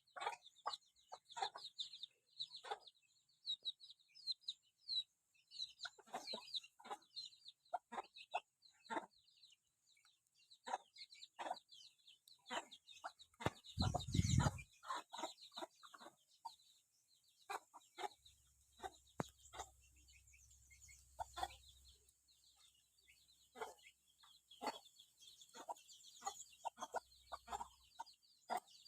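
Birds calling: many short, separate calls repeating throughout over a steady high chirping, with a brief low thump about fourteen seconds in.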